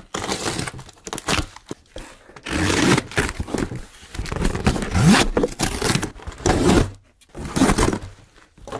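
Packing tape on a cardboard box being cut with a utility knife and torn away, and the cardboard flaps scraped and pulled open, in irregular rasping bursts; bubble wrap rustles near the end.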